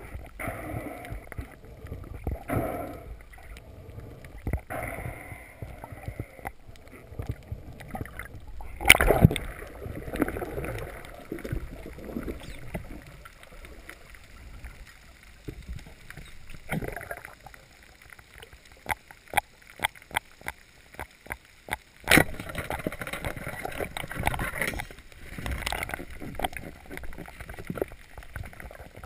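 Underwater sound of a spearfishing diver swimming over a reef: water rushing and gurgling past the camera, with soft pulses at first, then scattered sharp clicks and two loud knocks, about nine and twenty-two seconds in.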